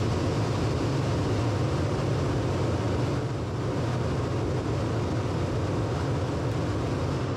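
Loud, steady rushing test noise filling an acoustic lab's reverberation chamber during a sound transmission (STC) test of a wall. The noise is heaviest in the deep rumble range and starts to die away slowly in the room's echo at the very end.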